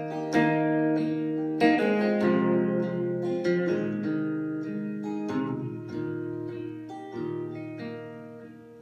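Electric guitar played solo, picked notes and chords ringing out and decaying, fading gradually quieter toward the end.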